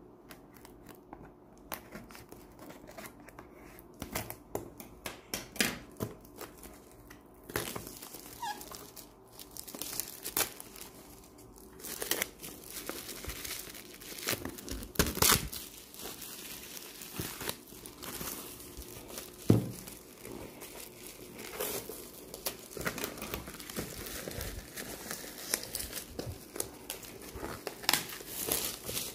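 Clear plastic shrink-wrap being torn and peeled off a cardboard laptop box, crinkling and crackling in irregular bursts that grow busier partway through, with a few sharper knocks from handling the box.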